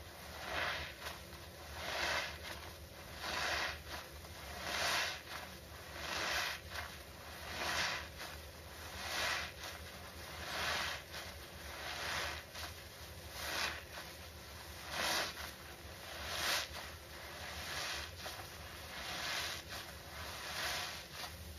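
Small soap-soaked foam sponges squeezed over and over in gloved hands: a wet squelching and crackling of suds, about once every second and a half.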